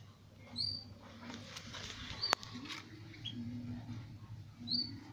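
Four short high-pitched chirps spread a second or so apart, with one sharp click a little over two seconds in, over a low steady hum.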